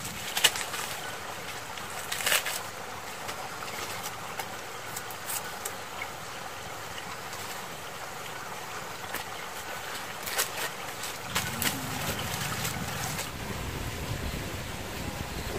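Steady rustling outdoor noise with a few sharp snaps among tall grass, about twice near the start and twice about ten seconds in. From about eleven seconds in, wind rumbles on the microphone.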